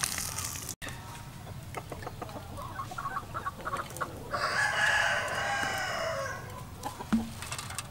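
A rooster crowing once, about two seconds long and falling off at the end, with a few short clucking calls just before it. A single sharp knock near the end.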